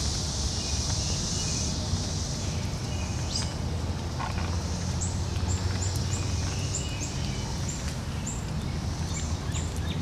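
Outdoor ambience with a high, steady periodical cicada buzz that fades after about two seconds. From about halfway through comes a run of short high chirps, about two a second, over a steady low rumble.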